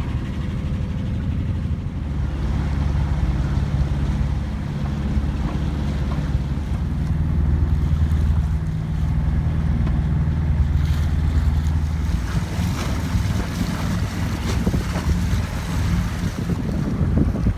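A 30-foot sailboat's engine running steadily while the boat motors along, with wind buffeting the microphone and water rushing past the hull.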